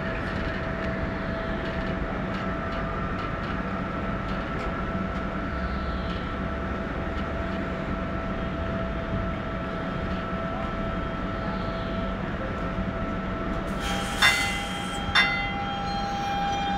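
Bombardier Guided Light Transit trolleybus standing at a stop, its onboard electrical equipment giving a steady hum with a couple of held whining tones. Near the end come two sharp clunks about a second apart, and then a new, higher multi-tone whine starts up as it gets ready to move off.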